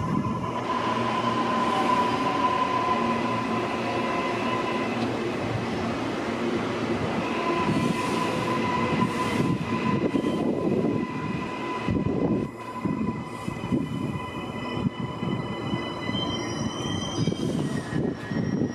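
Electric suburban passenger train running past the platforms, a steady rumble with a high steady whine over it. Near the end a whine rises in pitch as a train picks up speed.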